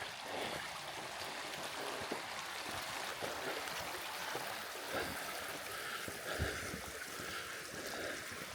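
A stream running steadily, with scattered faint knocks over it.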